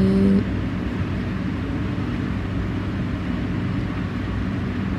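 Steady low rumbling background noise with no distinct events, after a voice trails off about half a second in.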